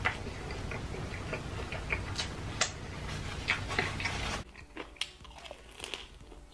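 Close-miked chewing of fried chicken, with repeated crisp crunches and mouth sounds. A little over four seconds in, the sound drops abruptly to quieter, sparser chewing.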